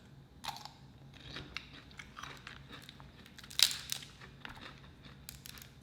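Close-up eating sounds: chewing and biting into food from a seafood boil, with scattered crisp crunches, the loudest about three and a half seconds in.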